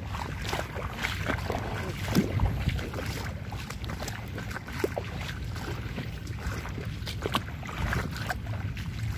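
Footsteps splashing and sloshing through shallow floodwater, in irregular steps, with wind rumbling on the microphone.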